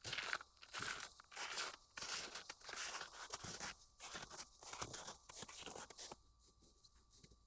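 Crunching footsteps on frozen forest ground, about one and a half steps a second, stopping about six seconds in.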